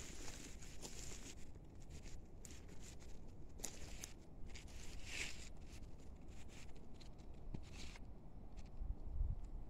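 Faint footsteps and rustling through grass, with a low wind rumble on the microphone that swells briefly near the end.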